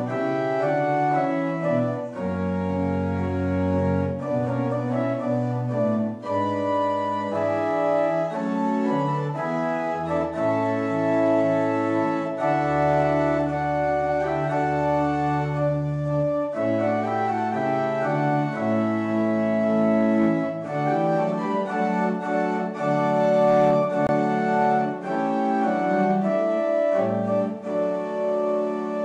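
Church organ playing a slow piece in sustained chords over held low bass notes, the harmony changing every second or two.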